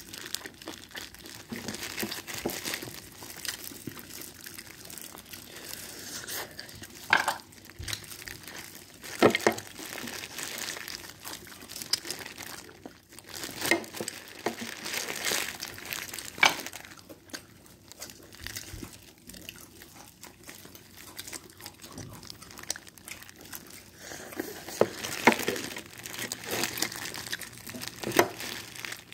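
Disposable plastic gloves crinkling as a fried chicken drumstick is handled and eaten close to the microphone. Scattered sharp crackles and crunches punctuate it.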